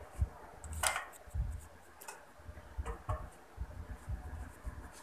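Faint, irregular clicks and low thumps of small handling noises, with one sharper click about a second in.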